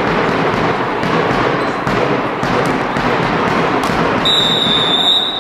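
Indoor handball game: voices shouting and chattering and the ball bouncing with thuds on the court floor. About four seconds in, a referee's whistle blows one long, steady blast.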